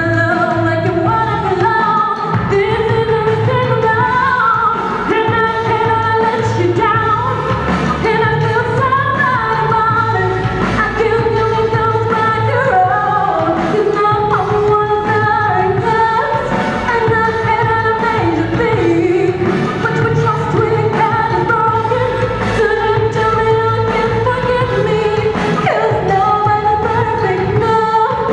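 A female voice singing a pop song over a backing track.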